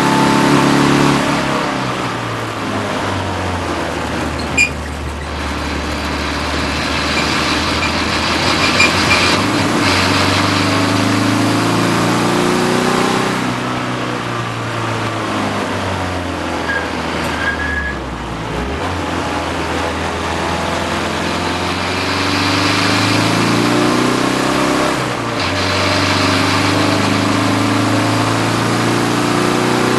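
Cabin sound of a BMW 330d race car's turbodiesel engine pulling hard through the gears at racing speed: the engine note rises and drops back at each gear change, over steady wind and road noise. It falls away briefly a little past halfway as the car slows. A single sharp knock comes about four and a half seconds in.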